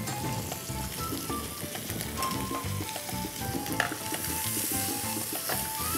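Stuffed pork loin searing in a hot frying pan, sizzling steadily while it is turned with metal tongs, the meat browning and caramelizing. A light clack of the tongs about four seconds in.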